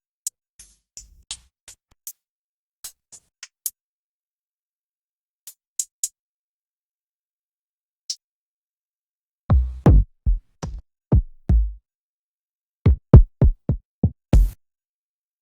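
Drum-machine one-shot samples played one at a time with silence between them. Through the first eight seconds these are short, crisp high hits like hi-hats and percussion. From about nine and a half seconds comes a run of loud kick drum hits with a deep low end.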